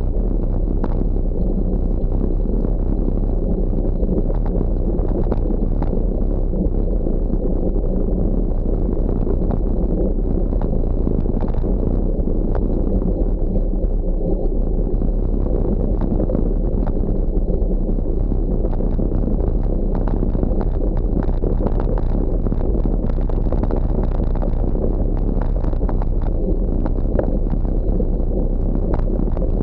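Bicycle tyres rolling fast over a loose gravel road: a steady low rumble with scattered clicks and pings of stones.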